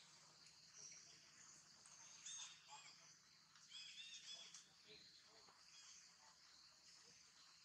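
Faint steady high insect buzz, with a few short high-pitched chirps about two seconds in and again around four seconds in.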